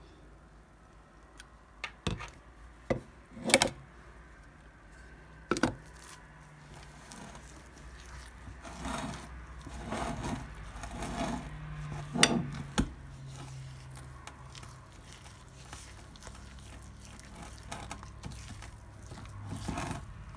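A spatula scraping thick mango puree out of a blender jar, with a few sharp knocks against the jar in the first few seconds. From about eight seconds in, a wire whisk stirs a thick semolina batter in a glass bowl, scraping and now and then clinking against the glass.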